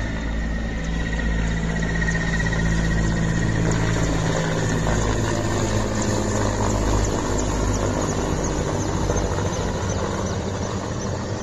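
Mi-17-type transport helicopter flying overhead: steady rotor and engine drone, with a high turbine whine that fades after the first few seconds.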